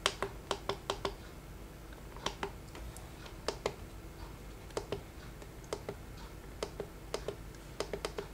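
Tactile menu buttons on a Mustool G1200 digital microscope clicking as they are pressed. There are about twenty clicks, some single and some in quick runs of two to four, as the settings menu is stepped through.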